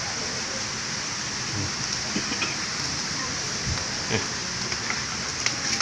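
Steady hissing background noise, strongest in the high range, with faint voices now and then.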